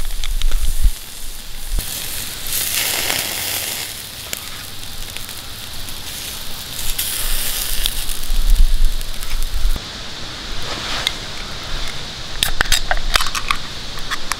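Wood campfire crackling, with slices of beef tongue sizzling on a metal grill grate over the flames. There is a cluster of sharp crackles near the end.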